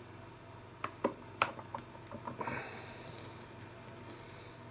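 A few light clicks and ticks, then a brief rustle, from hands handling fly-tying materials and tools at the vise.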